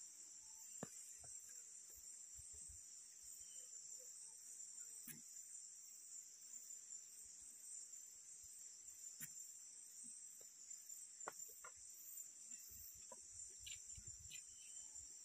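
Faint, steady, high-pitched insect chorus, with a few light clicks and knocks scattered through it.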